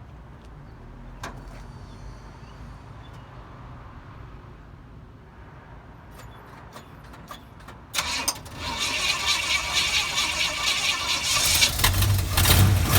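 A Firebird's 350 V8 being started: a few clicks, then about eight seconds in the starter cranks and the engine catches, settling into a loud running sound with a deep rumble near the end. The owner calls the starter a little weak.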